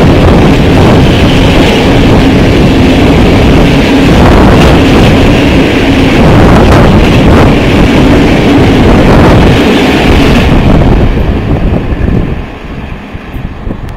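Freight train of covered cement hopper wagons passing close at speed: a loud rumble and clatter of wheels on the rails with a steady hum and regular knocks. The noise drops away about twelve seconds in as the last wagons pass.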